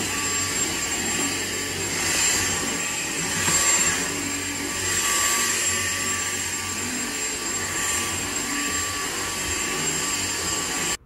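A motor-driven blower running steadily: a loud, even rush of air with a thin high whine over it, cutting off abruptly near the end.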